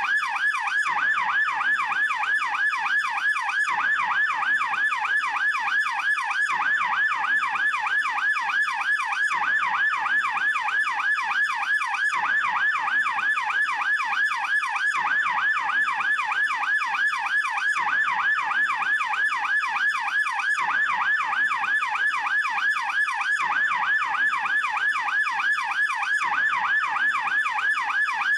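German police siren in yelp mode, the fast version: a loud, continuous rapid warble, its pitch sweeping up and down several times a second without a break.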